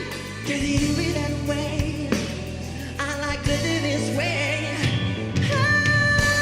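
Slow pop ballad music: held synthesizer chords over a steady bass line, with sung notes wavering above.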